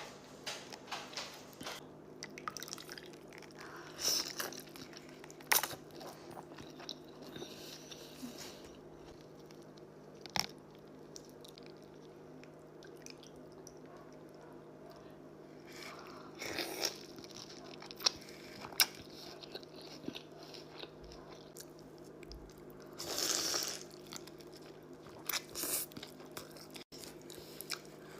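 Close-miked eating of birria tacos: crunchy bites and chewing with wet, squishy mouth sounds, in scattered short bursts with a few louder crunches.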